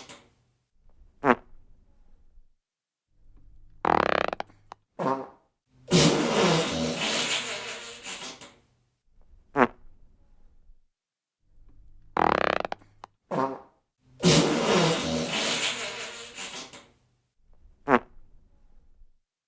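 A run of about nine separate fart sounds with short pauses between them. Some are brief and sharp, a few last under a second, and two go on for about two and a half seconds.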